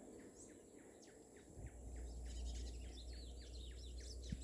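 A small seedeater (a "pardinho") singing faintly: a rapid run of short downward-sweeping notes, about five a second, with higher chirps mixed in from about halfway. A steady low rumble comes in about a third of the way through.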